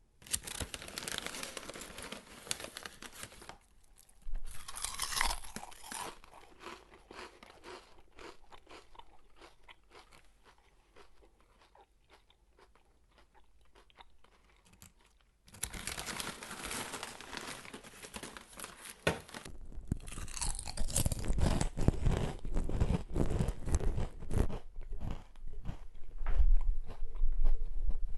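A person biting into and chewing potato chips: crisp crunching that dies down as the mouthful is chewed, a brief near-silent pause, then a second round of crunching from about halfway through, growing louder toward the end.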